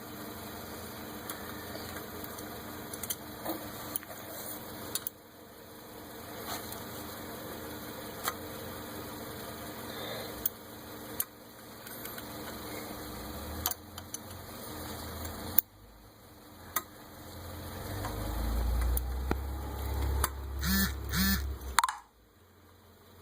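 A car engine idling steadily, with scattered small metallic clicks of hand tools working on a turbocharger. A low rumble swells over the last few seconds, with a few short pitched sounds, then cuts off abruptly.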